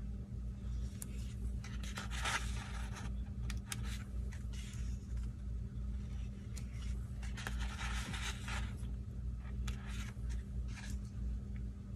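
Small paper-handling sounds: metal tweezers clicking and scraping as foiled sticker numbers are peeled from their sheet and rubbed down onto planner paper, in a few short rustling spells with scattered light clicks. A steady low hum runs underneath.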